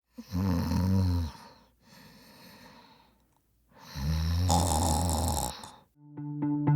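A woman snoring: two long snores about three and a half seconds apart, with a softer breath between them. Electronic music comes in near the end.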